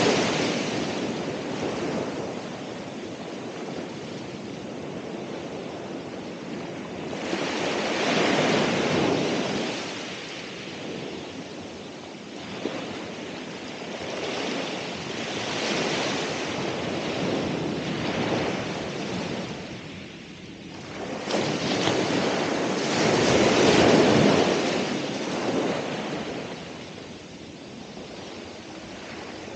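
Ocean waves breaking on the shore, the surf swelling and fading in slow surges every several seconds, with the loudest break about two thirds of the way through.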